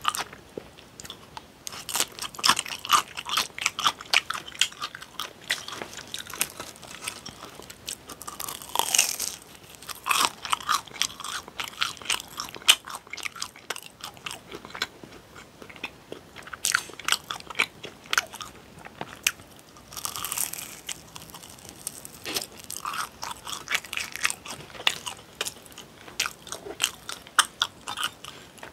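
Close-miked eating: crisp crunching bites and chewing, first of a slice of pickled yellow radish, then of a fried cream cheese twist pastry stick.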